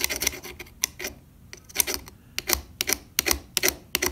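Serrated jaws of grozzing pliers scraping and clicking against a hot soldering iron's tip as the iron is rolled back and forth, metal on metal, in quick irregular clicks. The pliers are filing built-up gunk off the tip, which had left only its very end working.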